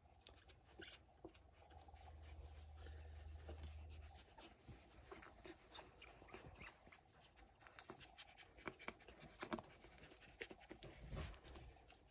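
Faint sounds of a two-week-old French bulldog puppy being handled: small grunts and snuffles, with soft scattered rustling and clicks of the hand moving over its fur and the sheepskin.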